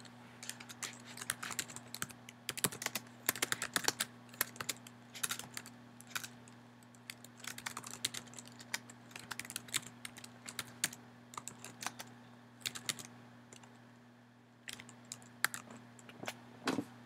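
Typing on a computer keyboard: quick runs of key clicks, a pause of about a second near the end, then a few more keystrokes. A faint steady low hum lies underneath.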